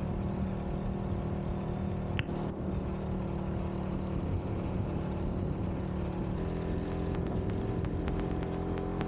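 Motorcycle engine running steadily under way, its note changing about six and a half seconds in. A brief high squeak comes about two seconds in, and faint sharp ticks start near the end.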